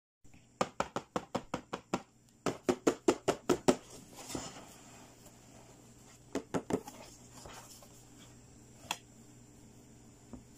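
Fingernails tapping on toy-box packaging: two quick runs of sharp taps about five a second, the second louder, then a soft rustle, a few more taps and a single click near the end.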